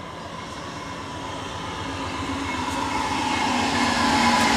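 VIA Rail passenger train, led by a diesel locomotive, pulling into the station past the platform. Its engine and wheel noise grow steadily louder as the locomotive draws level.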